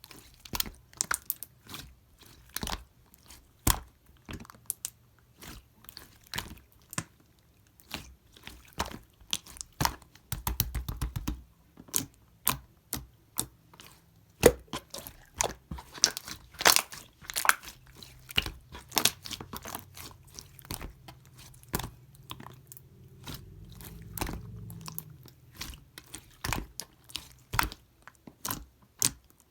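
Clear slime being squished and pressed by hand, giving many small irregular pops and clicks. A faint low rumble comes in briefly about ten seconds in and again near the end.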